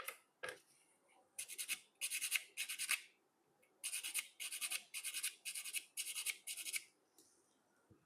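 Two sharp clicks, then about nine quick rubbing strokes of something rough against a hard surface, in two runs with a short pause between them.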